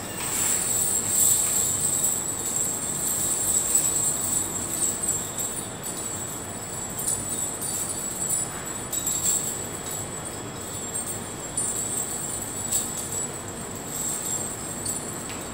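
Metal discs on a beaded cape jingling as it is handled and shaken, a continuous irregular rattle of small metal pieces, loudest in the first few seconds.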